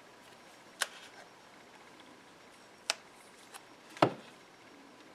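Handling sounds as stretch tape is pulled and wrapped tightly around a glued wooden rifle stock to clamp its cracks: three short sharp clicks spread over a few seconds, the last one a duller knock.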